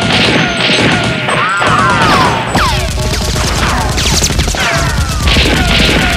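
Dubbed gunfire sound effects: a rapid volley of shots and bullet impacts on brick, laced with many falling whistles.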